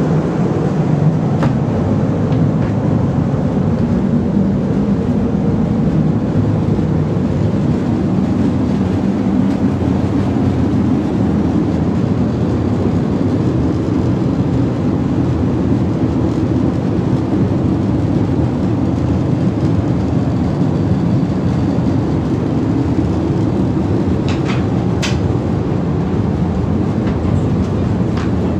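Loud, steady in-flight cabin drone of an Airbus A340-600, an even rush of engine and airflow noise, with a few light clicks near the end.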